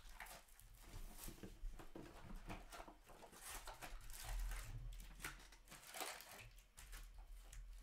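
Faint, irregular rustling and soft taps of trading cards and their packs being handled and stacked on a table.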